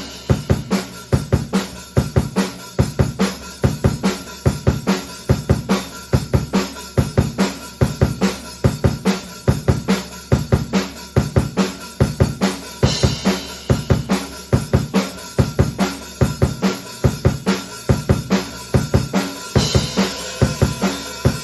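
Drum kit played solo, with no backing track: a fast, steady kick-and-snare groove, with crash cymbal accents a little past halfway and again near the end.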